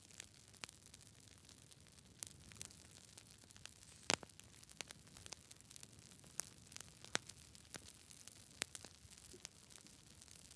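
Campfire crackling: burning wood giving irregular sharp pops and snaps, about one or two a second, over a steady soft hiss, the loudest pop about four seconds in.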